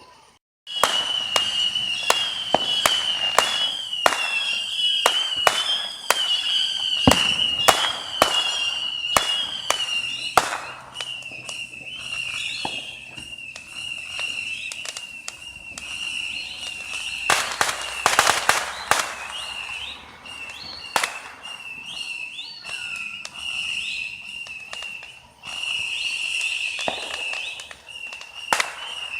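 Consumer fireworks going off: a dense string of sharp bangs and crackles through the first ten seconds and another cluster about eighteen seconds in. Under them runs a high, wavering whistle that goes on almost without a break.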